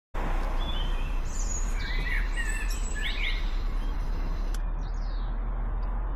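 Birds chirping and singing in short bursts, most busily in the first half, over a steady low rumble.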